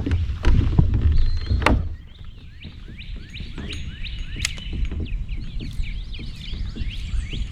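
Loud low rumbling with a few sharp knocks for the first two seconds, like handling noise or wind on the microphone, then birds chirping busily: many short, sliding chirps, several a second, over a steady low rumble of wind or water.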